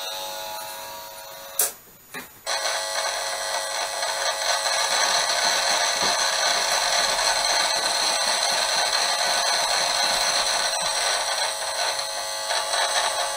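An Esmog Spion EMF meter's audio output buzzes as a dense, steady mix of many high tones while it picks up electric fields. A click and a short drop come about one and a half seconds in. From about two and a half seconds in the buzz comes back clearly louder, as the meter is held near a monitor covered in shielding fabric with a bad ground connection: a stronger electric field.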